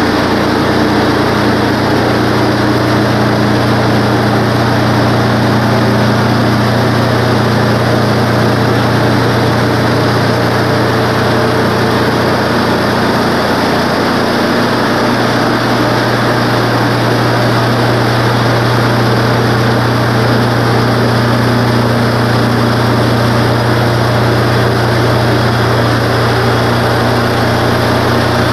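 Wood-Mizer LT15 bandsaw sawmill running steadily, its gas engine under load as the band blade saws lengthwise through a pine log, over a steady high sawing hiss. The engine note shifts slightly about halfway through.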